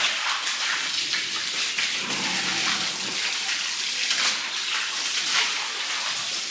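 Water spraying steadily from a hose, a continuous hiss and splash.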